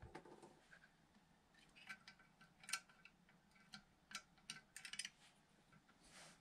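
Faint, irregular clicks and light taps of tools and small parts being handled. The sharpest click comes just before the middle, and a quick cluster of clicks follows later on.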